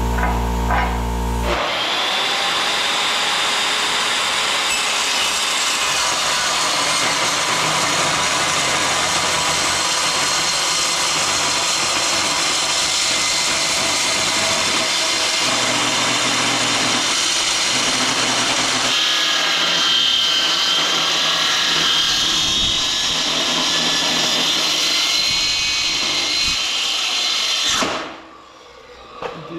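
Milwaukee metal-cutting circular saw cutting through steel plate, a loud steady whine that stops abruptly near the end and winds down. A brief steady electrical buzz comes just before the saw starts.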